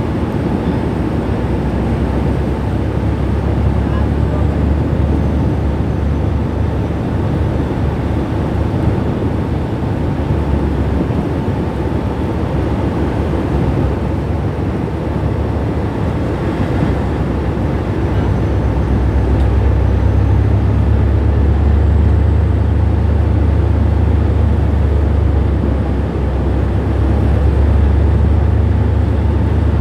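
Anchor handling tug supply vessel's engines running with a steady low rumble, growing louder about two-thirds of the way through.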